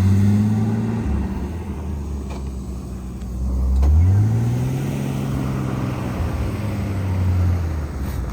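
Off-road Jeep engine revving under load. The pitch dips about a second in, climbs sharply around four seconds, holds there, then eases off near the end.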